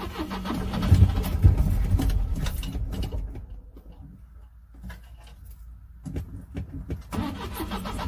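Classic Volvo station wagon engine cranking and sputtering, trying to catch but not staying running. The sound is loudest in the first couple of seconds and fades after about three seconds.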